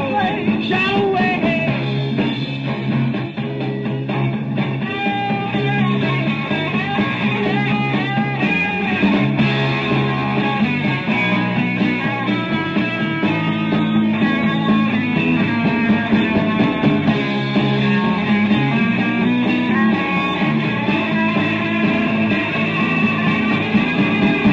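Rock band music with guitar over a repeating bass figure. It sounds dull, with the treble cut off, like an old recording.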